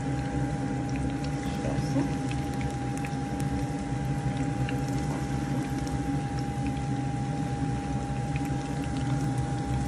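Several cheese dough balls deep-frying in hot oil: a steady bubbling sizzle, dotted with small crackles, over a steady hum.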